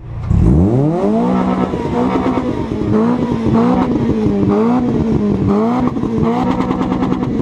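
Mitsubishi Eclipse's engine revved hard: the pitch climbs steeply in the first second, then is held high, the revs rising and dipping again and again.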